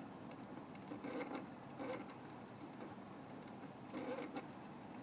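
An unidentified noise: irregular clusters of faint clicking and scratching, heaviest about a second in and again near the end.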